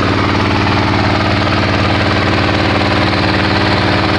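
Boat engine running steadily with an even, rapid pulsing throb.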